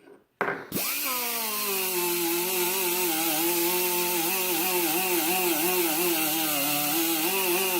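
Electric power tool fitted with a Scotch-Brite abrasive pad, switched on about half a second in and running steadily over steel, with a steady hiss of abrasion. Its motor pitch drops as it settles, then wavers as the pad is worked against the part.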